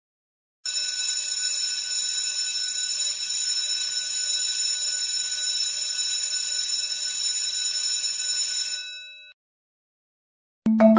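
Bell ringing continuously and steadily for about eight seconds, like an electric alarm bell. It then stops, its tones dying away over about half a second. Marimba-like music notes begin just before the end.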